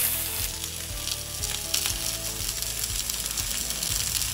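Boneless chicken thighs frying on a hot, oiled cast iron grill pan, a steady sizzle.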